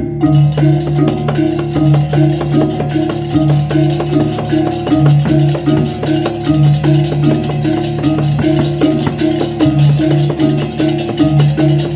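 Balinese baleganjur gamelan playing: bronze gongs and gong-chimes beat out a fast repeating interlocking figure over drums. Crashing hand cymbals join right at the start and keep up a dense clatter.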